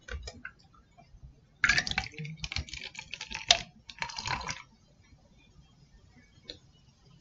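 Carbonated Bang energy drink poured from a can into a champagne flute, splashing and crackling with fizz for about three seconds, preceded by a few light handling clicks.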